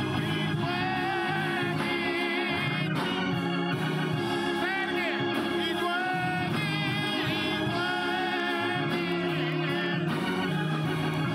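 Organ playing gospel music: held low chords with a melody line gliding above.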